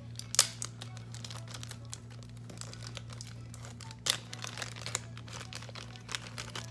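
Clear plastic baggie crinkling and crackling in the hands as it is pulled open. The sharpest crackles come about half a second in and about four seconds in, over a steady low hum.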